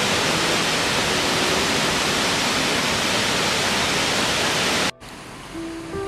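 Loud, steady rush of a waterfall that cuts off abruptly about five seconds in. A quieter flow of water follows, with soft held music notes coming in near the end.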